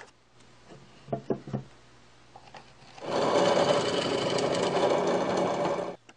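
Drill press boring a hole into a wooden board: the motor running and the bit cutting wood for about three seconds from midway, then cutting off suddenly. A few short knocks come about a second in.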